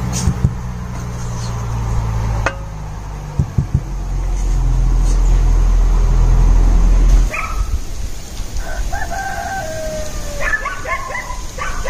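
A steady low rumble with a few sharp knocks cuts off about seven seconds in. Then a rooster crows, its long calls falling slightly in pitch, with a second round of calls near the end.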